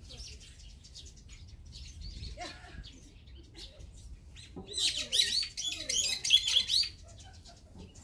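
Small wild songbirds chirping. About halfway through comes a loud, dense run of rapid chirps lasting a couple of seconds.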